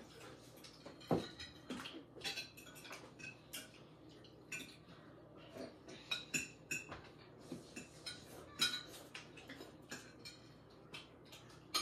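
Forks and spoons clicking and scraping against plates as several people eat at a table, in irregular light taps, with soft chewing in between.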